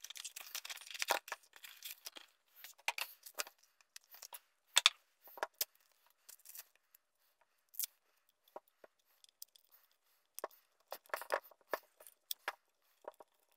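Cardboard and plastic packaging being opened and handled: scattered short crinkles, rips and small clicks, thinning out to a few soft knocks in the middle and picking up again near the end.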